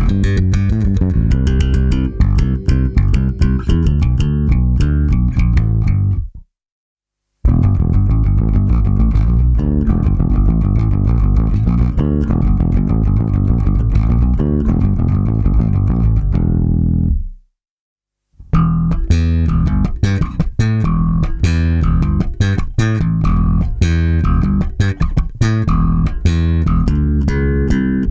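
Solo six-string electric bass guitar, a 1997 Warwick Corvette with bubinga body, wenge neck and Seymour Duncan Basslines humbuckers, played through its active preamp with both pickups on and the bass EQ boosted. Three played phrases, each cut off by a sudden silence, about a third and two thirds of the way through.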